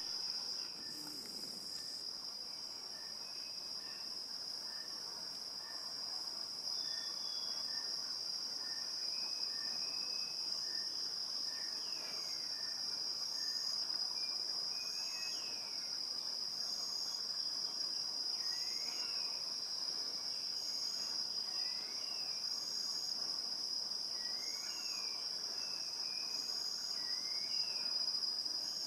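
Rainforest insects keep up a steady, high-pitched drone, with a higher pulsed call repeating about once a second. From about seven seconds in, birds add short sliding whistles.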